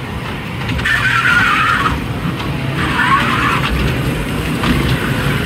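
Small fairground kiddie train running along its track with a steady low rumble, broken twice by a loud shrill noise lasting about a second.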